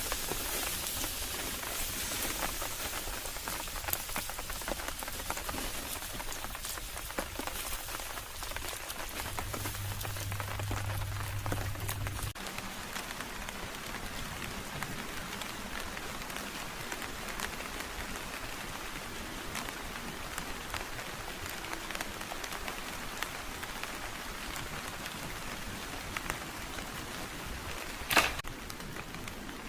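Steady rain falling, an even hiss with scattered single drops. A brief low hum sounds from about nine to twelve seconds in, where the sound changes, and a single sharp knock comes near the end.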